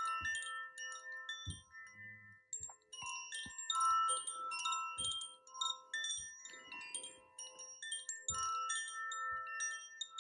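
Soft chimes ringing: high metallic tones struck at irregular moments, overlapping and ringing on, as a background sound bed.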